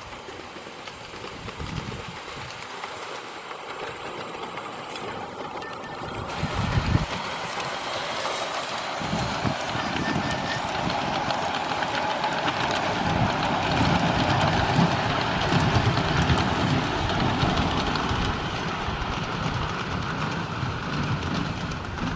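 Live steam model locomotive CGW 292 running on its track, growing louder over the first half and easing slightly near the end.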